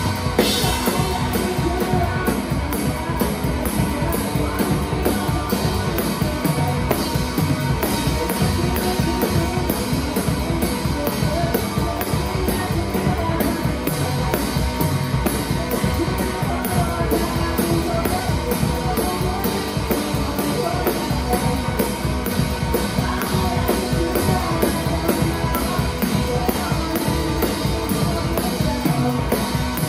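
Live rock band playing loudly, with the drum kit up front in the mix: fast, steady drum hits over guitar.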